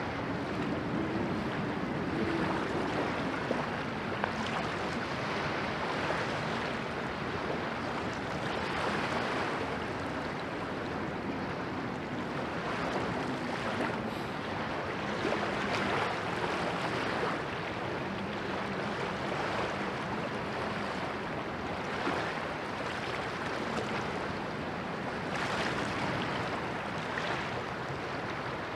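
Steady rushing noise of wind and river water, rising and falling gently, with a faint low drone from a distant inland cargo ship's engine that wavers slightly in pitch.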